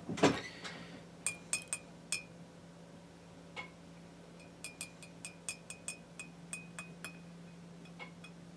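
A metal lure hanger on a wooden stick tapping against the rim of a glass jar of clear coat. About a quarter second in there is one louder knock. After it comes a string of light, unevenly spaced clinks, each with a brief glass ring, over a steady low hum.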